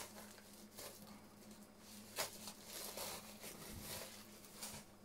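Several short rustles of plastic shrink wrap and a cardboard record sleeve as a shrink-wrapped vinyl LP is handled, over a faint steady hum.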